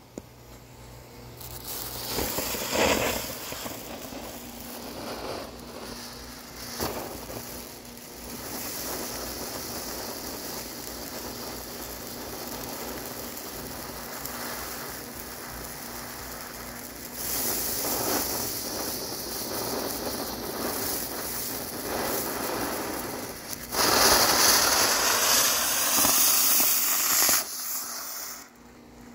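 Four-tube Horse Brand Four-Seasons firework fountain burning, hissing steadily as it sprays sparks. It surges louder in spells, loudest a few seconds before the end, then dies away.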